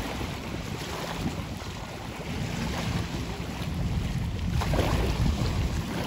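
Wind buffeting the microphone, over small sea waves splashing and lapping close by.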